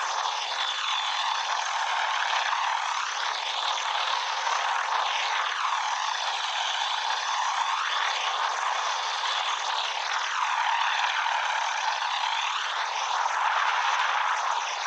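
Helicopter in flight: a steady, rushing drone of engine and rotor noise with no deep bass and a slowly swirling, hollow sweep running through it.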